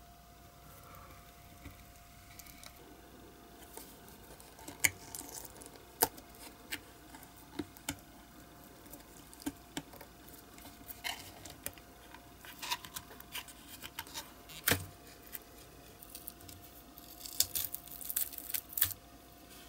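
Close handling noise: scattered sharp clicks and taps as a plastic mold box is prised open with a hobby knife and a two-part silicone rubber mold is worked out of it, with a denser crackling rustle near the end as the silicone halves are peeled apart. A faint steady hum runs underneath.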